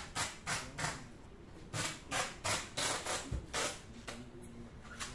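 Portable electric milking machine hissing air in short, sharp bursts, about three a second, in two runs with a pause of about a second between them.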